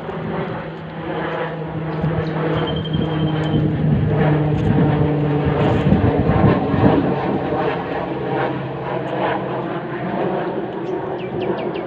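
A steady engine drone with a low hum and higher overtones, growing louder toward the middle and then easing off.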